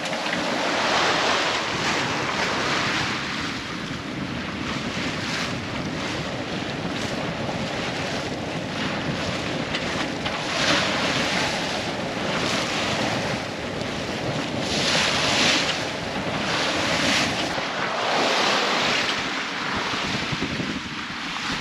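Water rushing and splashing along the hull of a sailing yacht moving fast under sail, with wind buffeting the microphone. The splashing surges every two seconds or so as the hull meets the waves.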